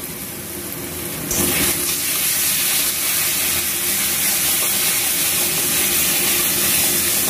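Onion, ginger and spice paste frying in mustard oil in a kadai: a steady sizzle that grows louder about a second in.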